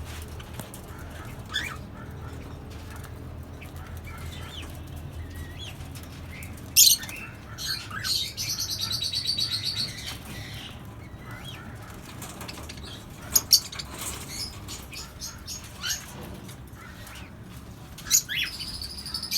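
Small parrots (Fischer's lovebirds, cockatiels and budgerigars) calling and chirping, with wings fluttering. There are scattered sharp calls, the loudest about seven seconds in, and a rapid chattering trill lasting about two seconds just after it.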